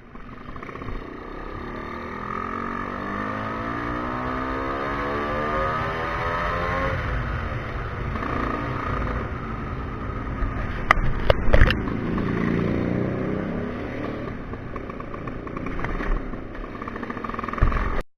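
Tuned Vespa scooter engine pulling hard while riding, its pitch climbing steadily for about seven seconds as it accelerates, then running on at speed with another rise later. A few sharp knocks come about eleven seconds in, and the sound cuts off abruptly near the end.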